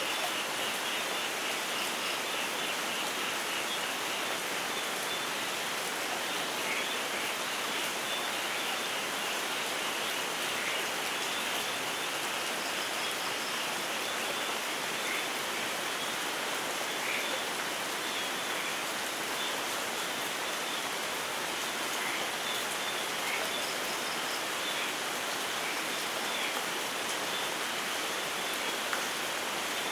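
Steady, even rainfall in a rainforest, with scattered faint short chirps of small wildlife over it.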